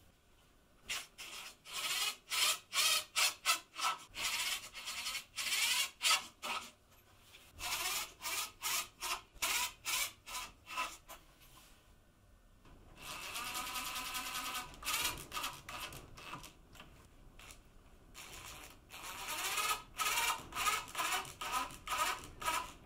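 Steel F-style bar clamps being set and tightened by hand: the screw handles turned in runs of quick repeated strokes, metal rubbing on metal, with a steadier rasp of a few seconds about midway.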